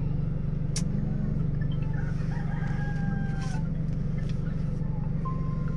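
Rooster crowing faintly, one drawn-out call about two seconds in, over a steady low hum inside the car.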